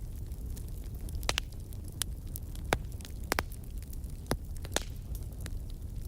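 Wood fire crackling in a fireplace: irregular sharp pops and snaps, about a dozen, over a steady low rumble of burning.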